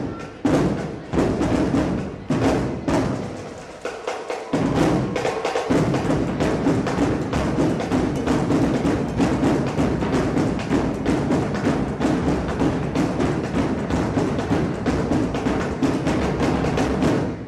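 Drum-heavy percussion music for a drill team dance routine. A few separate heavy hits open it, then after a brief lull the drums come in fast and driving, and they stop suddenly at the end.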